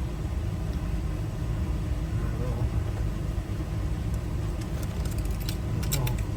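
Steady low rumble like an idling engine, with a few small sharp clicks near the end as lock pins and cylinder parts are handled.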